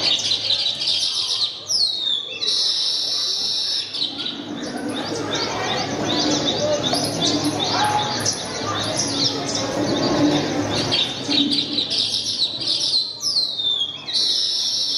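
Recorded birdsong played as a stage sound effect over a hall's sound system: many birds chirping and twittering in quick repeated calls, with a falling whistle about two seconds in and another near the end, a cue for morning over a sleeping character.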